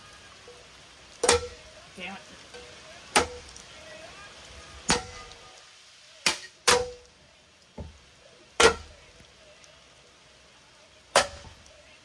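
A running ceiling fan struck again and again by thrown objects: about eight sharp clangs, spaced one to two seconds apart, several with a short metallic ring after the hit.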